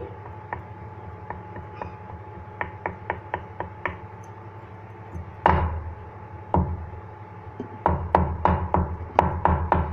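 Wooden board under a thin mutton strip, first struck by a pointed utensil as the meat is pricked full of holes: a string of light taps, about three a second. Then a wooden rolling pin knocks heavily on the meat and board, twice with a pause, and in a quick run near the end.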